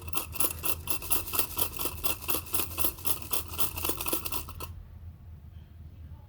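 Coffee beans shaken in their container: a rattling rhythm of about five shakes a second that stops abruptly after about four and a half seconds.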